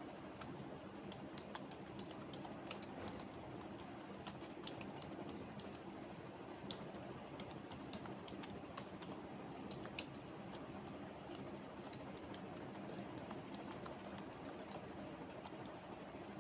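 Computer keyboard typing: irregular runs of quiet key clicks, busier in the first half and sparser toward the end, over a steady faint room hum.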